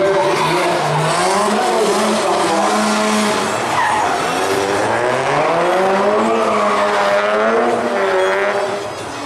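Drift car, a Mazda RX-7, sliding through a corner: its engine revs rise and fall as it is held in the slide, over steady tyre squeal and skid noise.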